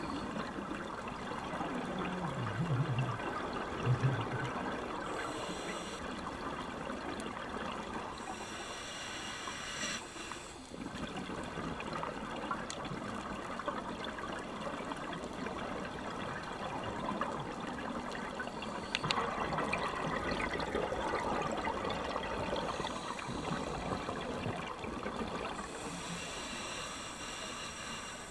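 Scuba diving regulator bubbles heard underwater: a steady bubbling, watery rush, with louder hissing bursts of exhaled bubbles several times.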